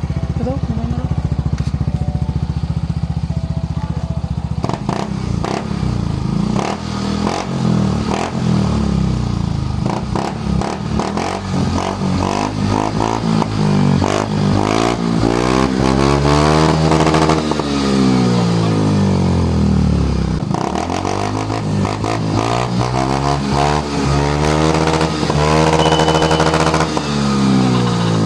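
Yamaha Mio i 125 scooter's single-cylinder engine through an ORBR aftermarket exhaust pipe, idling at first and then revved again and again, the pitch rising and falling with each blip. It climbs to high revs around the middle and again near the end, with a full, crisp exhaust note.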